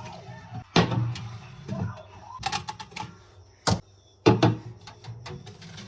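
A handful of sharp knocks and clatters, the loudest about a second in and around four seconds in, with faint voice-like murmur between them.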